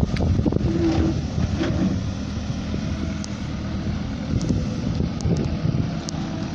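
Backhoe loader's diesel engine running steadily under load as the bucket digs into earth.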